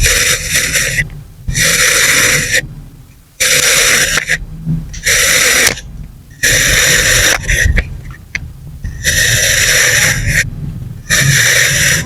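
Kinetic sand being cut with a knife: about seven grainy, crunching strokes, each about a second long, with short pauses between.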